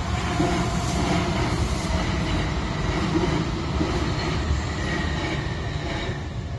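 Hankyu Kyoto Line electric train running past at speed, loud and close, fading near the end.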